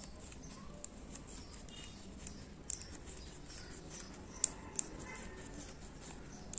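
Quiet handling sounds of crocheting a chain with a crochet hook and yarn: faint, scattered light clicks, with two sharper ones about four and a half seconds in.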